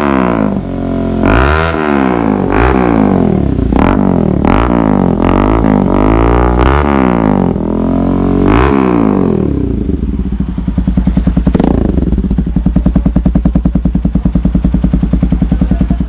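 Bajaj Rouser 200NS single-cylinder engine blipped repeatedly through an aftermarket slip-on muffler held onto the exhaust, about one rev a second, each rising and falling in pitch. About ten seconds in, it settles into a steady pulsing idle.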